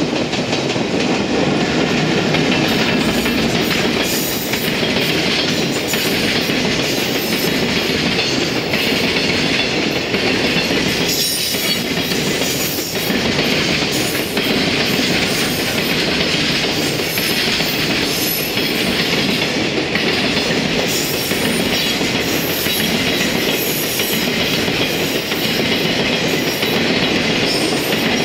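Container freight train wagons rolling past close by: a steady rumble of steel wheels on the rails, with repeated clickety-clack as the wheelsets cross the rail joints.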